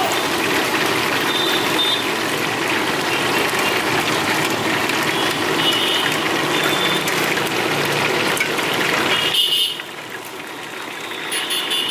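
Chicken frying in masala in an iron kadai: a steady sizzling hiss as it is stirred. The sizzle drops off suddenly about three-quarters of the way through, then rises again near the end.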